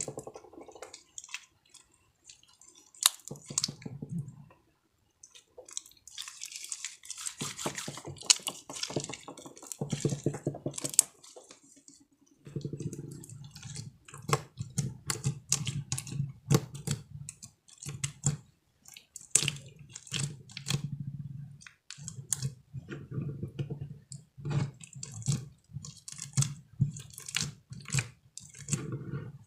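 Slime being kneaded, pressed and stretched by hand, giving wet, sticky squishing with many small clicks and pops.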